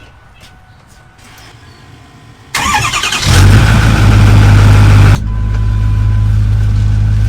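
Diesel pickup truck engine cranked and started about two and a half seconds in. It catches and runs loudly for a couple of seconds, then drops suddenly to a steady, slightly quieter run.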